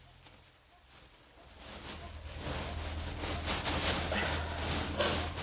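Domestic ducks and geese calling now and then over rustling. The first second or so is near quiet.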